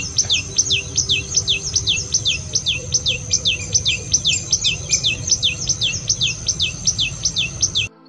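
Common tailorbird singing: one sharp note repeated about three times a second, each sliding down in pitch.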